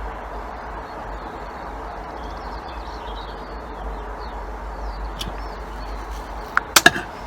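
Small birds chirping and twittering over a steady background hiss, with a few sharp clicks near the end.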